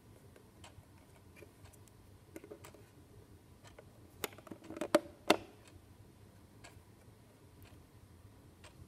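Light plastic clicks and knocks from the green plastic fishing clock's battery compartment being handled, with a few louder clicks a little past the middle as the AA battery is pressed in its holder. Under them, faint ticking about once a second from the clock movement.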